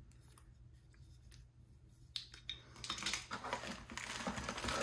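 Packaging being handled in the gun box: a couple of light clicks about two seconds in, then steady crinkling and rustling, growing louder toward the end.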